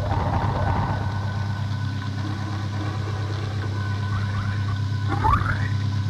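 Improvised experimental electronic drone: a steady low hum under held higher tones, with a short rising glide about five seconds in.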